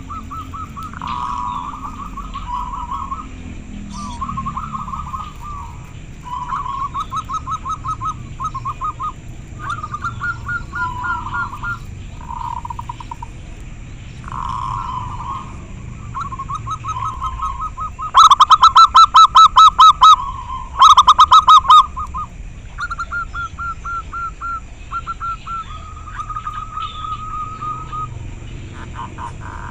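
Zebra doves (local perkutut) cooing: run after run of rapid, stuttering trilled coos. One series is much louder, twice, about two-thirds of the way in.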